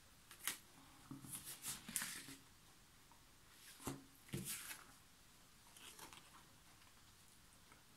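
Faint paper rustling and soft handling knocks in a small room, coming in about five short bursts with quiet gaps between.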